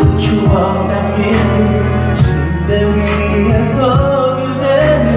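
A man sings a pop song into a handheld microphone over a backing track with bass and drums. The voice is amplified through the room's speakers.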